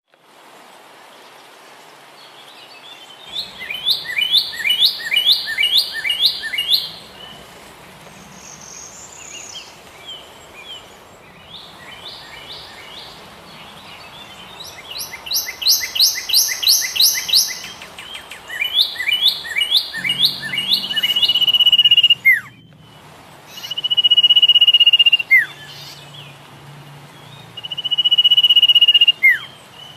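Bird song: several phrases of rapid repeated chirps, then, in the second half, three long steady whistles that each end in a quick downward sweep.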